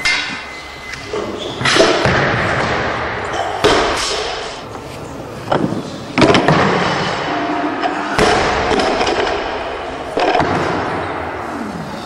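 Loaded barbells with rubber bumper plates dropped onto lifting platforms, heavy thuds every second or two, each ringing on in the big hall.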